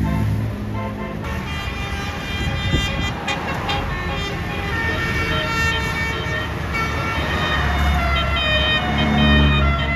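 Bus 'telolet' basuri multi-tone air horn playing a tune: several horn tones sound together and change pitch in steps. A bus engine runs low underneath, stronger near the end.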